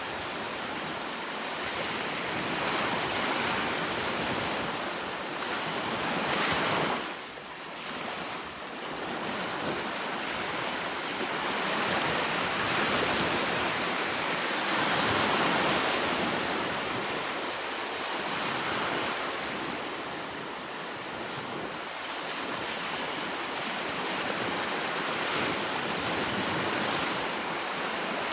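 Sea surf: waves breaking and washing in continuously, swelling and ebbing every few seconds, with a brief lull about seven seconds in.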